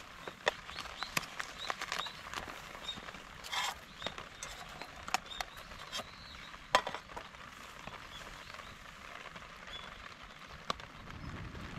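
Wood campfire crackling, with irregular sharp pops, the loudest about seven seconds in, over a steady soft hiss of rain.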